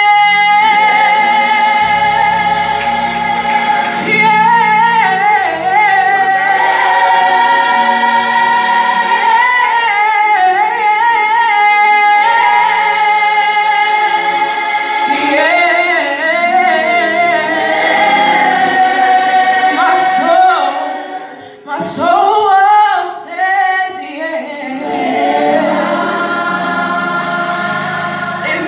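Vocal music: voices singing long held notes with vibrato over sustained low chords, dipping briefly about three-quarters of the way through before the singing resumes.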